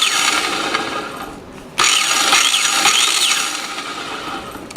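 Electric power tool's motor switched on in short bursts, once more about two seconds in, each time starting abruptly with a whine that rises and falls, then running down. It still sounds kind of bad: the bearings are worn and due to be replaced.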